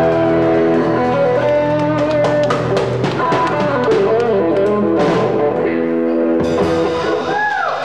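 Live rock band with electric guitars, bass and drum kit playing the end of a song: held chords and a run of drum and cymbal hits, then a last held chord. The music breaks off about six and a half seconds in.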